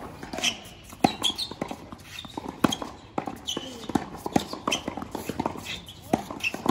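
A tennis ball rallied in a volley-and-groundstroke drill: sharp pops of racket strings meeting the ball, with bounces on the hard court in between, coming about every half second to a second.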